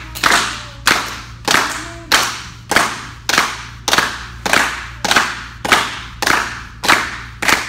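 A group clapping in unison in a slow, steady rhythm, about one and a half claps a second, each clap ringing briefly in the room.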